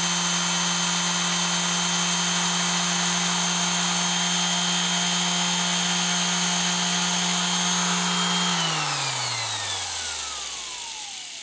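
Harbor Freight 5-inch random orbital palm sander's electric motor running steadily with no load and its sanding pad off, a break-in run to seat the new brushes. About eight and a half seconds in it is switched off, and its whine falls in pitch and fades as it spins down.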